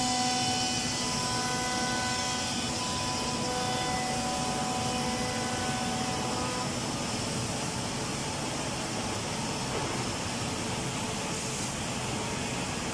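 Anderson PTP-3013 CNC machining centre's router spindle whining steadily as it mills a wooden panel, over a steady rushing hiss of machine noise. The spindle whine fades out about halfway through, leaving the rushing hiss.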